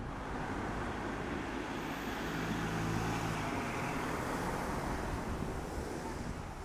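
Street traffic: a vehicle passing close by, its engine hum and tyre noise swelling to a peak about three seconds in and easing off.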